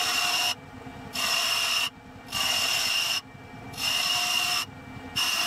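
Toe of a skew chisel cutting tread grooves into a spinning wooden toy wheel on a lathe: a scraping cut repeated about four times, each under a second long, with short pauses between in which only the lathe's quieter running is heard.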